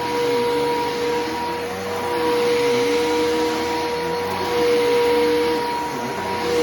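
Bissell Powerforce Helix Turbo upright vacuum running with a steady whine. Beneath it, a lower hum repeatedly dips and rises in pitch and loudness, about every second and a half, as the vacuum works.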